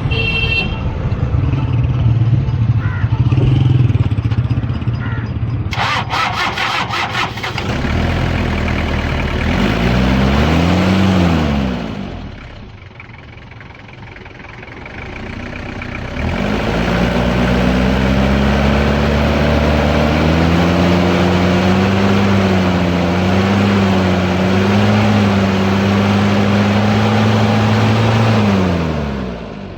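Toyota Hilux diesel engine running, revved up and back down about ten seconds in, then held at a raised, slightly wavering speed for about twelve seconds before the revs drop near the end.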